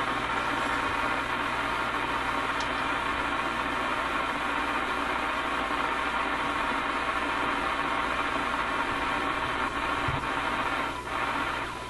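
Steady shortwave static from the RCA A25 vacuum-tube radio's loudspeaker, an even rushing hiss with no voice or music in it, as the set is tuned. It eases slightly near the end.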